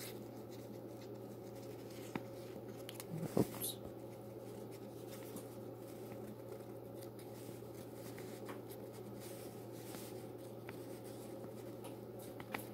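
Faint rubbing and rustling of fingers working braided fishing line, twisting a loop through itself, over a steady low hum. A brief louder noise stands out a little over three seconds in.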